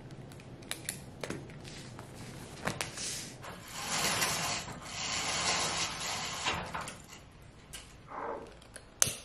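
Fabric window shade being pulled open by hand: a rubbing, sliding sound lasting a few seconds in the middle, with scattered light clicks before it and a sharp click near the end.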